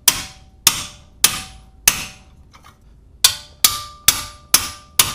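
Hammer strikes on a steel outer ball joint remover tool, driving its fork ears in under the ball joint seal. Four evenly spaced blows come first, then a short pause, then a quicker run of five, each with a brief metallic ring.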